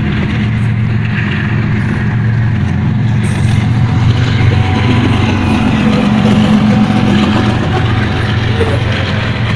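Pakistan Railways diesel locomotive passing close by with its train, its engine a loud, steady low drone that swells a little about six seconds in.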